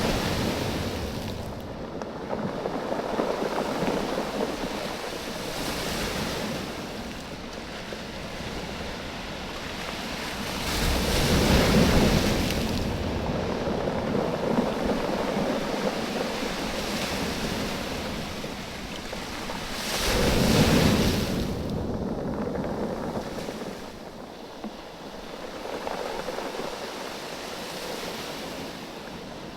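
Waves washing in and out over a beach of rounded oval stones, the stones knocking and rattling against each other in the backwash. The surf comes in repeated surges, the two strongest about a third and two-thirds of the way through.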